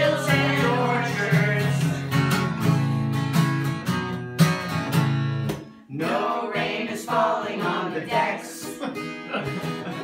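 Acoustic guitar strummed under a group of men's, women's and children's voices singing a song together. About halfway through there is a brief break before the singing picks up again.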